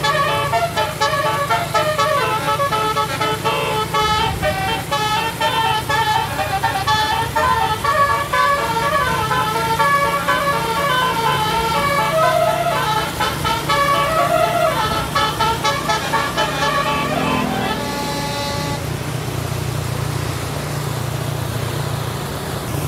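Tour bus telolet horn, a bank of electrically switched multi-tone air horns, playing a long, quick-changing melody of horn notes for about eighteen seconds over the steady running of the bus engine. The melody then stops, leaving the engine running on its own.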